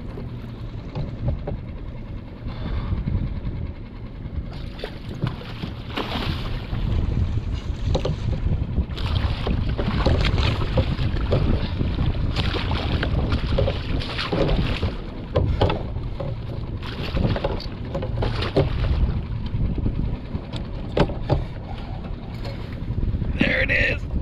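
Wind rumbling on the microphone and sea water slapping against a small skiff, with many short knocks and splashes.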